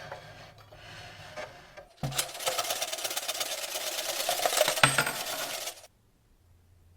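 Rapid metallic clinking and rattling, like small metal pieces being shaken or poured. It is light at first, then loud and dense from about two seconds in, and cuts off suddenly near six seconds.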